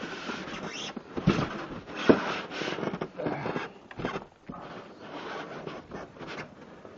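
A heavy 12-inch sliding compound miter saw being wrestled out of a tight-fitting cardboard box: the packaging scrapes and rubs, with two sharp knocks about one and two seconds in.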